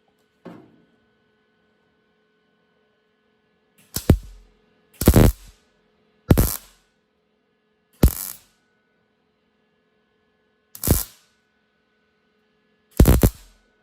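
Wire-feed (MIG) welder laying short tack welds in thin sheet-metal patch panel: six brief bursts of the arc, each under half a second, a second or two apart, over a faint steady hum.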